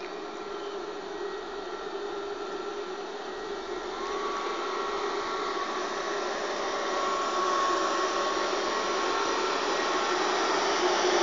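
Belgian MS96 electric multiple unit on the move: a steady rushing run that grows louder throughout, with a faint electric whine coming in about four seconds in.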